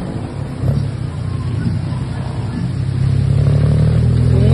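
Tuk-tuk engine running as it comes up close, a low steady drone that grows louder about three seconds in, over the hiss of heavy rain.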